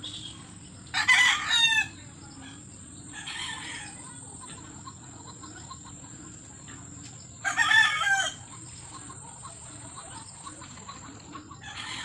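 Roosters crowing: two crows of about a second each, the first about a second in and the second about seven and a half seconds in.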